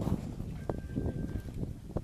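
Footsteps of rubber boots in wet mud and dry leaf litter: irregular squelching steps and rustles.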